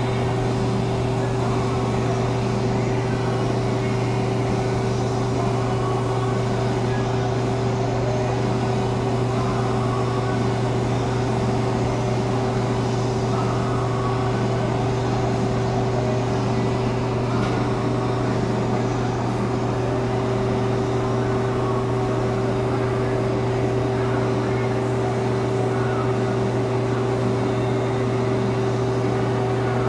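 Steady drone of paint-booth machinery: a low hum with a constant higher tone over an even hiss, unchanging throughout.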